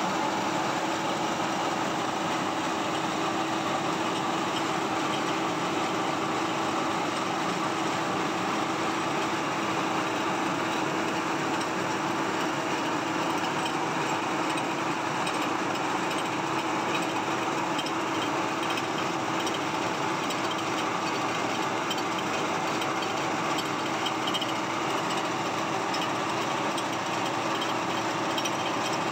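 Rice milling machine running steadily: a constant, unchanging mechanical din with a steady hum under it.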